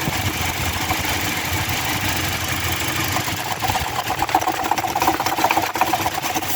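Toyota Hilux 2TR 2.7-litre four-cylinder engine idling, with a rapid chattering noise from the front of the engine that grows louder from about three and a half seconds in to about six seconds. The noise comes from the seized air-conditioning compressor and its failing pulley.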